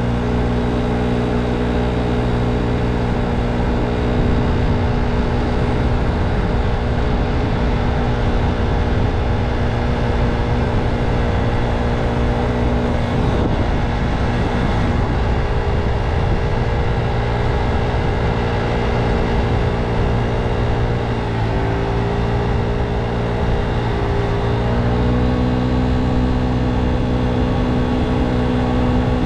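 A scooter's motor running steadily along the road, with wind rumbling on the microphone. Its pitch drops briefly about two-thirds of the way through, then climbs again as it picks up speed.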